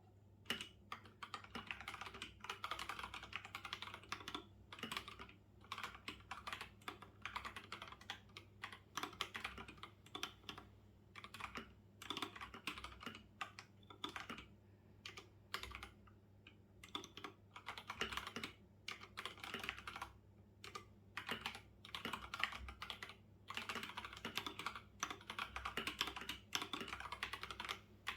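Typing on a computer keyboard: fast runs of key clicks broken by short pauses, over a faint steady hum.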